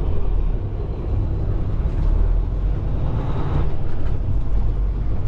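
Semi truck's diesel engine running with a steady low rumble as the truck moves slowly across a lot.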